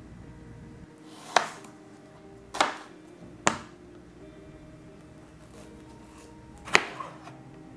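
Kitchen knife cutting vegetables on a cutting board: four sharp knocks of the blade meeting the board, the first, second and last each led in by a short slicing sound, over faint background music.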